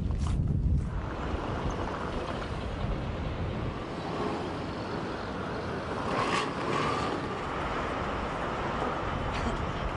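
Low thuds in the first second, then a steady rushing noise of city street traffic that swells briefly about six seconds in.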